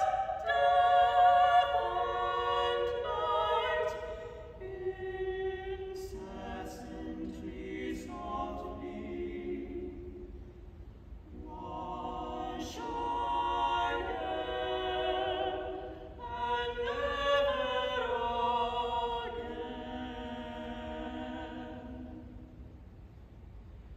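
Three treble voices, two sopranos and an alto, singing a cappella in close three-part harmony with long held notes. A softer passage comes about a third of the way through, the voices swell again past the middle, then taper off near the end.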